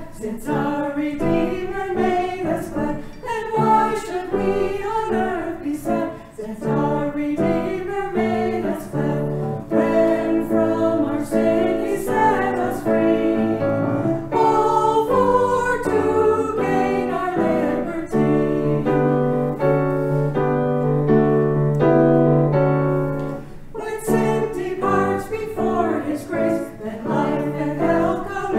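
Two women singing together with piano accompaniment, in long held notes.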